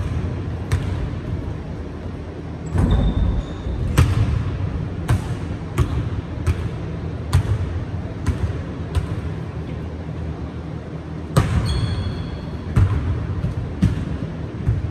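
A basketball bouncing on a hardwood gym floor: repeated dribbles, roughly one a second, echoing in a large hall over a steady low rumble. Brief high sneaker squeaks come twice, about three seconds in and near twelve seconds.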